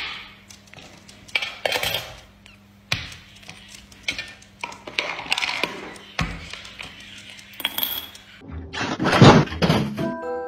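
Scattered light clicks, clinks and knocks of small hard objects such as coins, lids and tins being moved about on a floor. A louder, longer burst of noise comes about nine seconds in.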